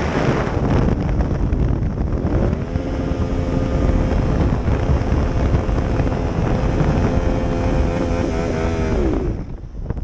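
Yamaha MT-07's parallel-twin engine running hard at high revs through a wheelie, under heavy wind buffeting on a helmet-mounted microphone. About two seconds in, the engine note climbs and is then held steady. It wavers near the end, and about nine seconds in it drops away.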